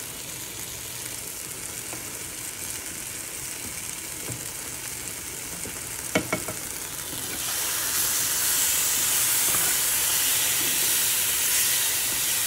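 Banana slices and banana peel frying in lard and sugar in a frying pan: a steady sizzle that grows louder a little past halfway. A spoon knocks once against a pan about halfway through.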